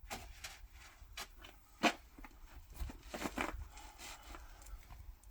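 Rifle and gear handling noise between shots of a .22 LR bolt-action match rifle: scattered clicks and rubbing, with one sharp click about two seconds in and a quick cluster of clicks a little over a second later.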